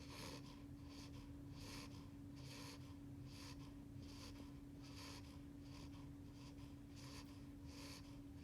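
Beagle puppy about eight weeks old, snoring softly in his sleep: a little snoring noise on each breath, in a quick, even rhythm. A faint steady hum runs underneath.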